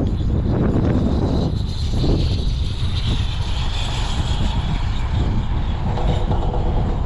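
Wind buffeting an outdoor microphone as a steady low rumble, with a higher hiss that swells for a few seconds in the middle.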